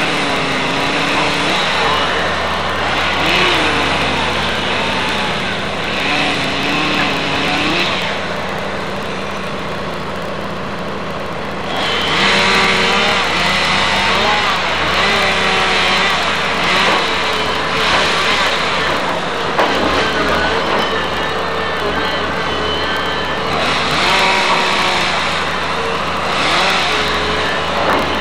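Komatsu hydraulic excavator's diesel engine running and changing pitch under load as it tears into a wood-frame house, with repeated bursts of cracking, splintering timber and falling debris. It eases off briefly about a third of the way in, then works hard again.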